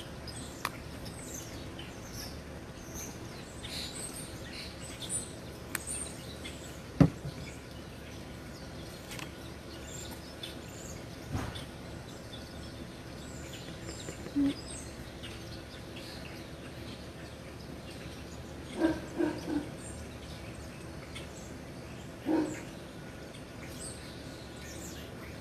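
Small birds chirping and twittering on and off throughout, over steady outdoor background noise. A single sharp click about seven seconds in, and a few brief low sounds later on.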